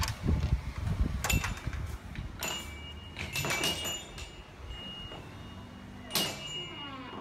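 A wooden, glass-panelled door being opened by its metal pull handle and walked through: several clicks and knocks from the latch and door, with low rumbling handling noise in the first couple of seconds and one more knock near the end.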